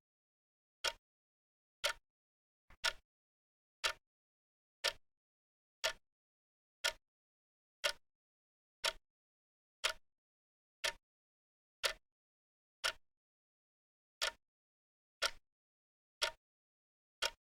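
Wrist watch ticking about once a second: short, crisp single clicks with silence between them.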